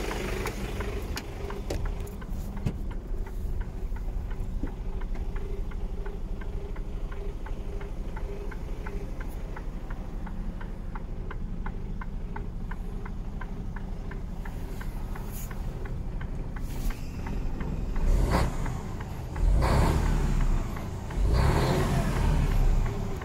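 Mercedes-Benz Actros 1840 straight-six diesel engine idling steadily, heard from inside the cab, with a regular light ticking. Near the end the engine is revved three times in quick succession, each rev rising and falling back.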